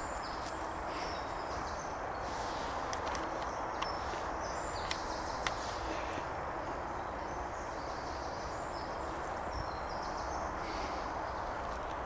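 Steady hiss of woodland ambience, with faint short high bird chirps scattered through it and a few light clicks a little after the middle.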